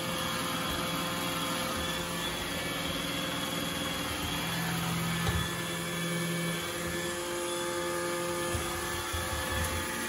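iRobot Roomba 960 robot vacuum running as it cleans a hardwood floor: a steady motor hum with a thin high whine, and a light knock about five seconds in.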